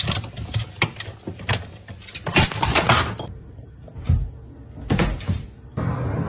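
Irregular knocks and clattering, several a second, for about three seconds, then a couple of heavier thumps near the end.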